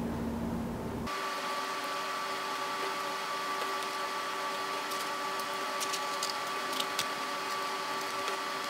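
A steady machine hum with several fixed tones that starts abruptly about a second in. Faint light clicks and taps come through it as the rubber caps are pressed onto the laptop's plastic base.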